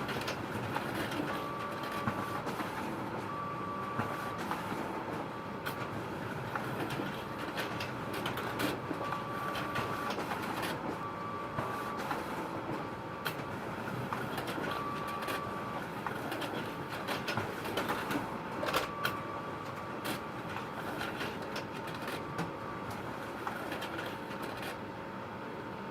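Photocopier running steadily, with frequent sharp mechanical clicks and short high tones that recur every second or two.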